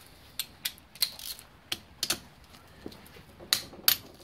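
Irregular sharp metallic clicks and clinks of a ratchet wrench and socket working the cylinder head nuts of a Honda CB750 engine, about ten in all, the loudest two near the end.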